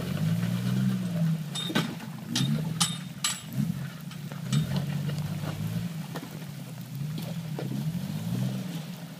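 Jeep Wrangler TJ engine working in low gear as it crawls over rocks, the revs rising and falling again and again as the throttle is fed in and let off. A few sharp knocks come in the first few seconds.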